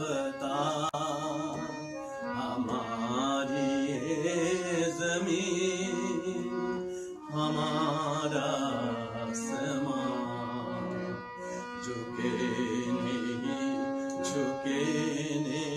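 Hindi prayer song sung with instrumental accompaniment: a voice singing long, wavering notes over sustained steady tones, in phrases with short breaks about seven and eleven seconds in.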